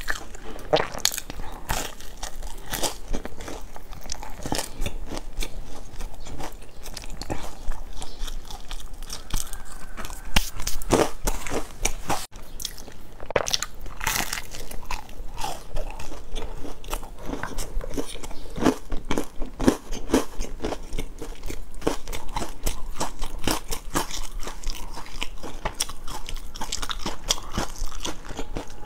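Close-miked biting and chewing of crunchy brown biscuits: a continuous run of sharp crunches and crackles as pieces are bitten off and chewed.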